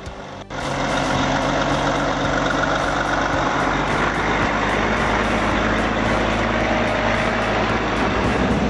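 Heavy truck engine running steadily under load, with dense road and mechanical noise, starting suddenly about half a second in.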